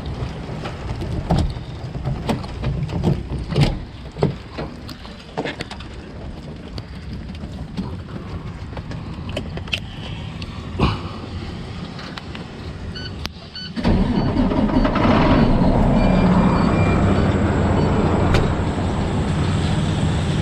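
Log truck's diesel engine running, with scattered clicks and knocks over a low steady hum; about two-thirds of the way through it abruptly becomes louder and steadier.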